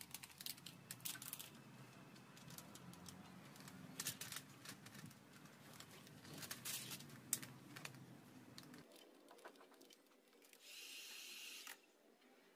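Clear plastic film crinkling and clicking in the hands as it is stretched and pressed around a plastic lamp lens: a run of small irregular clicks and rustles, with a steadier hiss-like rustle lasting about a second near the end.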